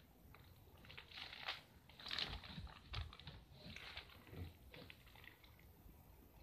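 A plastic courier mailer bag crinkling and rustling faintly in short bursts as it is turned over in the hands, with a few soft thumps.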